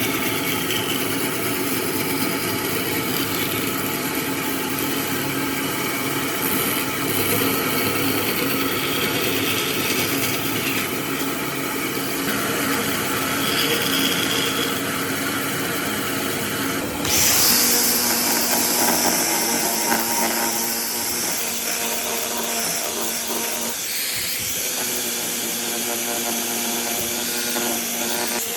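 Electric power tool running steadily and working wood. About two-thirds of the way in its motor pitch drops a little, as if under load, and a loud hiss of cutting or sanding comes in.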